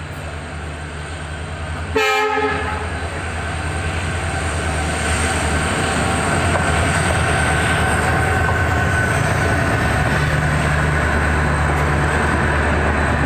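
WDP4D diesel locomotive giving a short horn blast about two seconds in. Its engine and the train's running noise then build steadily as it arrives, and the double-decker coaches roll by near the end.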